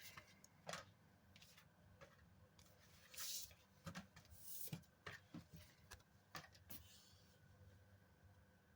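Near silence with faint, scattered rustles and light clicks of paper scratch-off tickets being handled.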